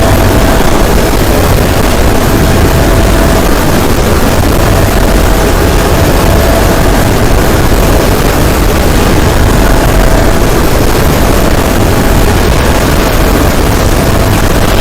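The Pibby 'darkness' sound effect: a very loud, steady wall of distorted noise, heaviest in the bass, with a faint thin tone held through it.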